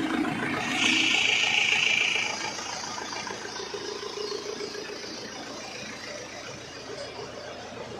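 Isuzu Panther diesel engine idling steadily during a blow-by check. About a second in, a louder rush of noise lasts for about a second and a half.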